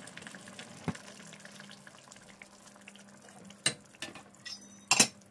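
Tomato stew simmering in a pot on a gas stove, bubbling and popping softly over a steady low hum. A few sharp clinks come near the end, the loudest about five seconds in.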